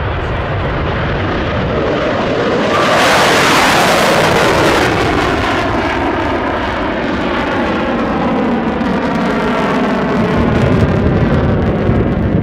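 Honda XRV750 Africa Twin RD07's V-twin engine running hard at speed, with heavy wind rush on the helmet-camera microphone. The wind noise swells about three seconds in, and the engine note holds steady through the second half.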